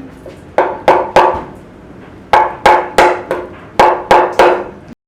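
About ten sharp hammer blows on a metal engine part, in quick runs of two or three, each ringing briefly; they are hammering at a stuck part of the RB25DET engine to work it free. The sound cuts off suddenly just before the end.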